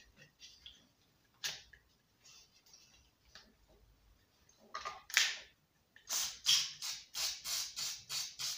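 WD-40 aerosol can spraying lubricant through its red straw into the centre hub of a lawnmower's recoil pull starter: one hiss about five seconds in, then a quick run of short hissing squirts, about three a second, near the end. Light handling clicks come before.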